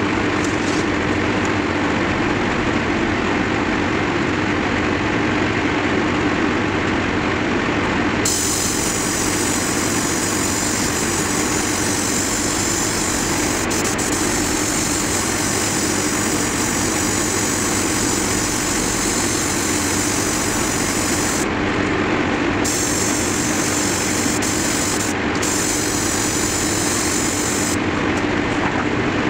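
Airbrush compressor running steadily with a constant motor hum. A higher hiss of air comes and goes over it, missing for the first eight seconds or so and breaking off briefly a few times near the end.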